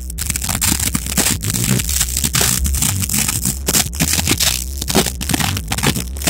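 Rock band playing live, with drums and electric guitar, recorded through an overloaded phone microphone. The distortion turns the music into a harsh, crackling, clipped wash in which the drum hits stand out as sharp cracks.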